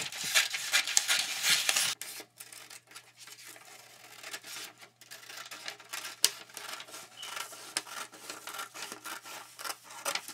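Scissors cutting a circle out of paper, with crisp rustling and crackling of the paper sheet. It is loudest and densest for the first two seconds, then turns quieter with scattered crackles as the paper is handled.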